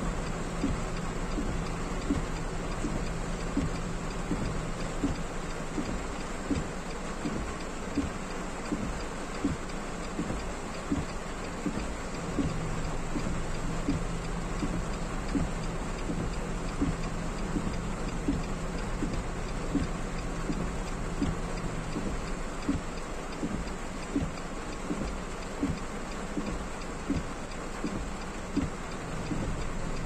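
Heavy rain falling on a moving car's roof and windshield, heard from inside the cabin as a steady hiss over a low hum. A soft, regular tick comes about once a second.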